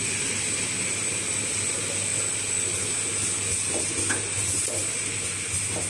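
Automatic bottle filling and capping line running: a steady low hum and a constant high whine from the machinery, with a few short mechanical clicks and clatters in the second half.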